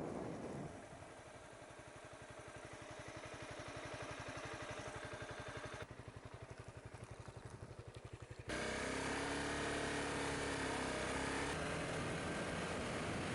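Honda CBR250R motorcycle engine dropping to a steady idle with an even, fast pulse. A little past the middle it changes abruptly to the bike running under way, louder and steady.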